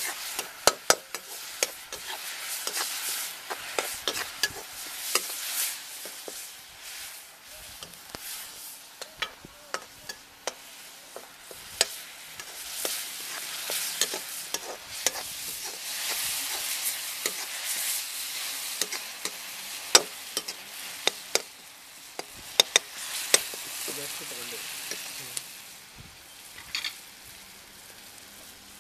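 Chopped onions and tomatoes sizzling in a metal kadai, with irregular sharp clinks and scrapes of a steel slotted spoon stirring against the pan. The sizzle swells and fades as the food is turned.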